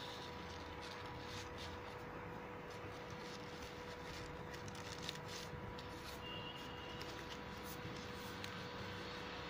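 Steady background hiss with a faint constant tone, and scattered soft rustles and small clicks from hands handling a gathered satin ribbon and thread.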